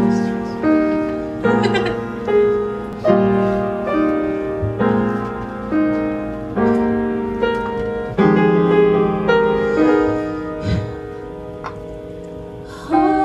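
Solo piano playing a gentle introduction of held chords, a new chord struck about every second. Near the end a woman's voice comes in singing.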